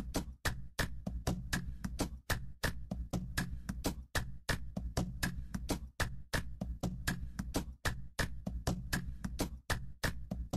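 Background music with a steady beat: sharp ticks about three to four times a second over a low bass line.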